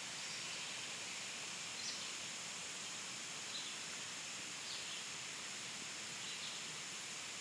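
Steady outdoor hiss with a bird chirping short, high notes every second or two.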